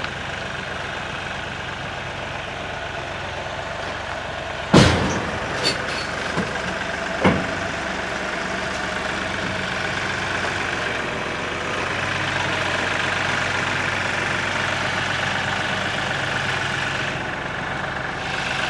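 Kioti diesel tractor engine running steadily as the tractor climbs the ramps onto a flatbed trailer. A loud clunk about five seconds in and two lighter knocks over the next few seconds come from the tyres rolling onto the ramps and the wooden deck.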